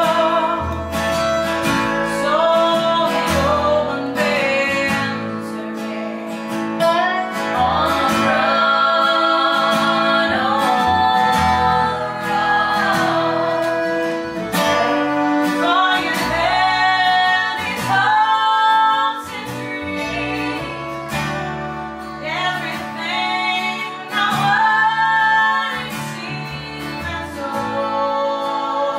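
Acoustic country string band playing a song: women singing over strummed acoustic guitar, with upright bass and fiddle.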